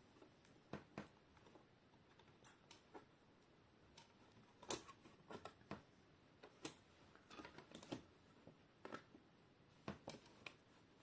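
Faint, irregular small clicks and taps of a laptop's plastic screen parts and cable being handled, over quiet room tone.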